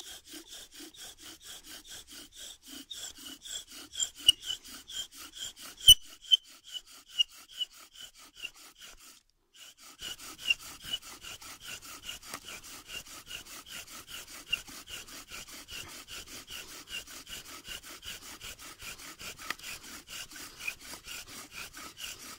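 Bow drill fire-making: a wooden spindle spun back and forth by a corded bow, squeaking and grinding in its wooden hearth board in a steady rhythm with each stroke, friction meant to heat the wood dust into a coal. A sharp click about six seconds in is the loudest sound, and the sound cuts out briefly just after nine seconds.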